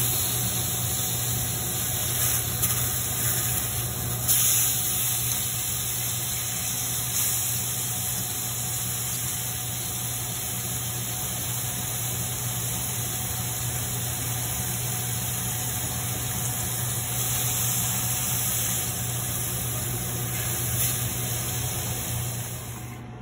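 Seasoned chicken breasts frying in oil in a stainless steel pan: a steady sizzle, with a few brief louder flares.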